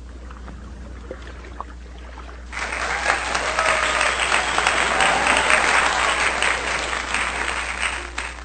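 Audience applauding, starting abruptly about two and a half seconds in, over a low steady hum.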